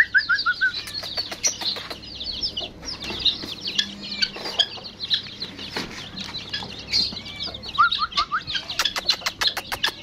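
A flock of chicks peeping in a dense, high-pitched chorus, with short runs of lower calls from hens near the start and about eight seconds in. A quick rattle of clicks comes a little after nine seconds.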